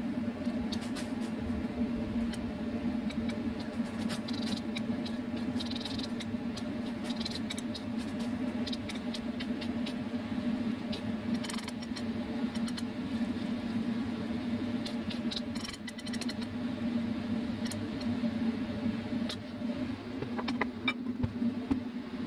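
Water boiling in a steel wok where choy sum is being blanched, over a steady low kitchen hum, with scattered light clicks and clinks.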